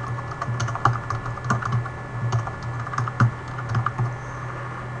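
Typing on a computer keyboard: irregular key clicks that stop about four seconds in, over a steady low hum.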